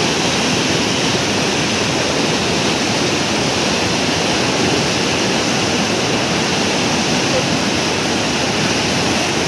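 Mountain river in spate rushing over boulders as churning white water, a loud, steady rush of water with no breaks.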